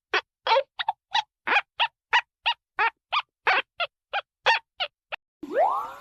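A rapid run of short, honk-like bird calls, about three a second, which stop about five seconds in. Just after, a sound starts sweeping upward in pitch.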